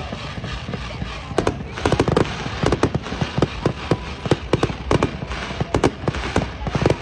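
Aerial fireworks going off: a rapid, irregular string of sharp bangs, several a second, over a steady crackling hiss from the bursting shells.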